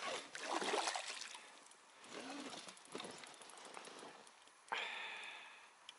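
Pike hooked on a wobbler splashing at the water surface close to the boat, in rough bursts. About three-quarters through, a sudden higher sound with a steady pitch starts and fades over about a second.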